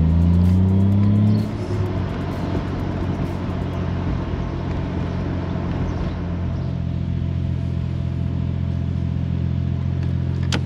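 Toyota 1JZ-GTE inline-six in an MK3 Supra, heard from inside the cabin: revs rise under acceleration for about a second and a half, then drop as it eases off, and it settles into a steady cruising drone with road noise.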